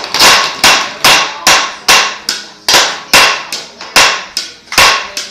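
A steady run of loud, sharp knocks, about two to three a second, each ringing briefly after the strike.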